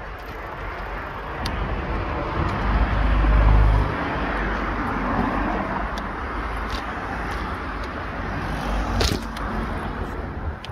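Street traffic noise as a car passes, its tyre and engine noise swelling a couple of seconds in and then easing off. There is a sharp knock near the end.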